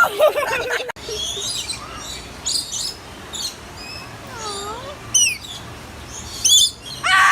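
Animal chirps and squeaks: short high-pitched calls scattered throughout, with a run of quick, steeply falling squeaks about five seconds in.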